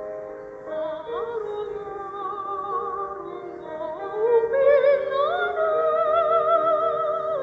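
Singing: long held notes with a strong vibrato, sliding up into each new, higher note, over steady sustained lower tones.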